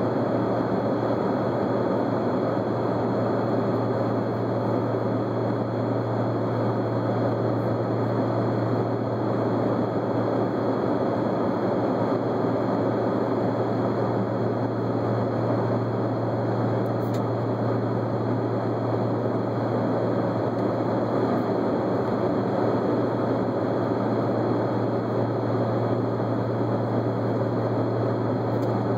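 Steady cabin noise of an airplane in flight: an even rushing drone with a constant low hum underneath.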